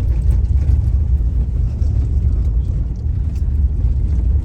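Steady low rumble of a car on the move, heard from inside the cabin: engine and tyre-on-road noise.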